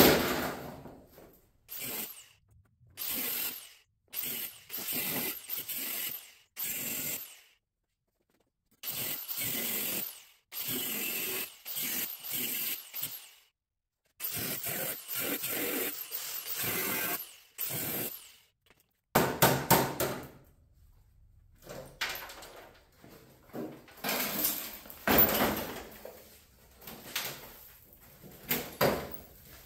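A series of short scraping and rubbing strokes, each under a second with abrupt gaps between, then a stretch of sharper knocks and clatter from about two-thirds of the way in.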